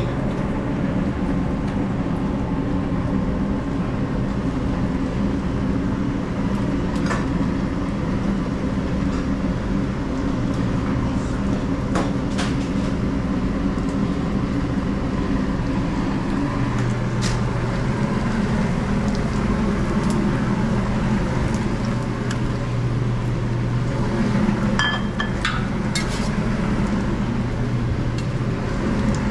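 Steady low mechanical hum of restaurant kitchen equipment; a deeper hum comes in about halfway through. Scattered sharp clicks and knocks of utensils and cookware sound over it, a few of them ringing briefly.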